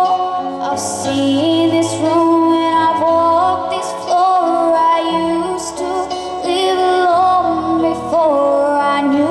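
A woman singing a slow melody of long held notes without clear words, over instrumental accompaniment with a low bass line.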